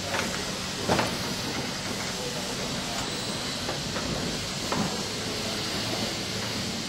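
Steady hissing workshop background noise with a low hum, broken by a few faint knocks about a second in and again near five seconds.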